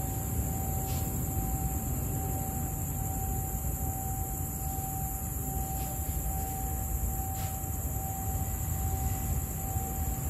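Distant diesel-electric locomotive of an approaching freight train: a steady low rumble, with a single steady high-pitched tone running under it and a few faint clicks.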